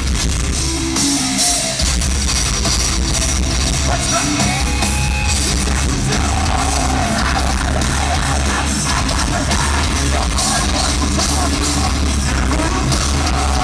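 Metalcore band playing live: drum kit, distorted electric guitars and bass guitar. The heavy low bass drops out for the first couple of seconds, then comes back in.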